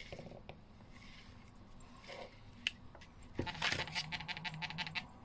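Paper being handled at close range: faint rustles and taps, then, about three and a half seconds in, a quick run of crinkly clicks lasting under two seconds as a painted paper strip is picked up and bent.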